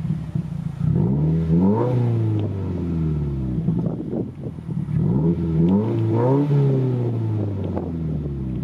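2016 Subaru WRX's turbocharged 2.0-litre flat-four revved twice through an ETS cat-back exhaust with resonator, each rev rising quickly in pitch then falling away more slowly.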